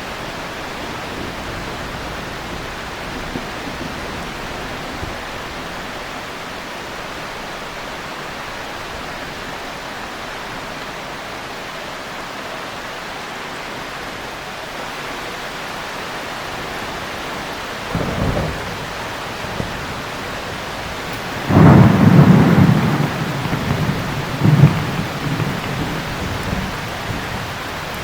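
Steady heavy rain with thunder. A short rumble comes about two-thirds of the way in, then a much louder thunderclap rolls on for a second or two, with a further clap and rumbling just after.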